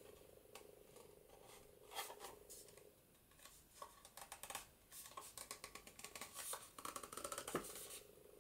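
Faint crackling and rustling of a thick, layered card journal cover being bent by hand along a scored fold, with a quick run of small ticks in the second half.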